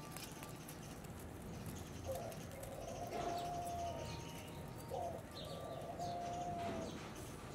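A dove cooing: two long, even notes, about two seconds in and again about five seconds in, over a low steady background hiss.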